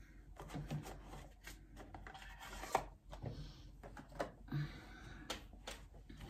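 Tarot cards and their cardboard box and paper insert being handled and set down on a wooden table: scattered light clicks and taps, with two short spells of paper rustling partway through.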